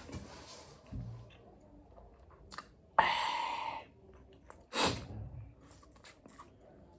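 Close-up eating noises from someone chewing chicken, with small scattered mouth clicks. A sudden loud, noisy burst comes about three seconds in, and a shorter one just before five seconds.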